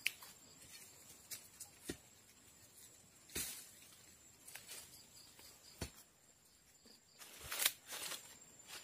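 Leaves and twigs rustling and snapping as someone pushes on foot through dense undergrowth: a few separate short crackles, the loudest near the end, over a faint steady high tone.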